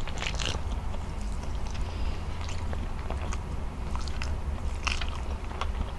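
Wet, sticky eating sounds close to the microphone: fingers mixing and pressing sauce-soaked rice with egg yolk on a plate, with scattered short sticky clicks, over a steady low hum.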